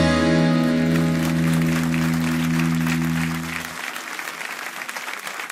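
A live band's final chord on accordion, electric guitar and bass, held and ringing, then dying away about three and a half seconds in. The audience applauds over it, and the applause carries on alone once the chord has faded.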